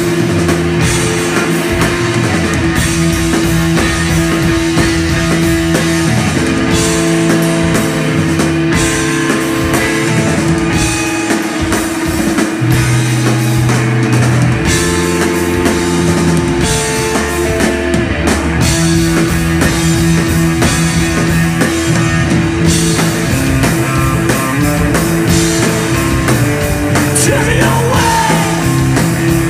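A three-piece rock band playing live: electric guitar, electric bass and drum kit, loud and continuous.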